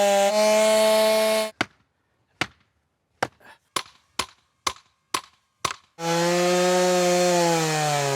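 A chainsaw running at high revs stops abruptly about a second and a half in. About eight sharp, irregularly spaced knocks follow, typical of wedges being hammered into a felling cut. About six seconds in the chainsaw runs again, its pitch slowly dropping as it takes load in the cut.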